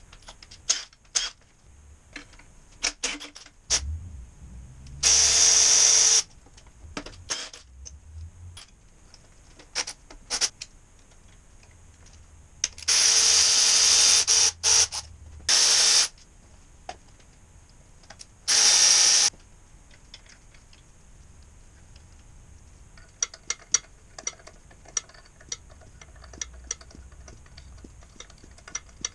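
Cordless power tool running in four short whining runs of about a second each, spinning bolts off an Isuzu 4BD2T diesel engine being torn down, with clicks and clinks of tools and metal parts in between.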